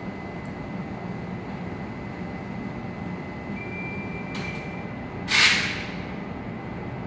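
TRA E200-class electric locomotive E215 hauling a freight train slowly into an underground platform, a steady low rumble. About five seconds in comes one short, loud hiss of air from the air brakes.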